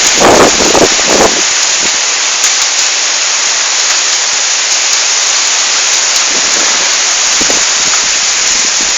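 Heavy rain in a hailstorm, pouring down as a loud, steady hiss. Gusts of wind buffet the microphone in the first second or so, then die away.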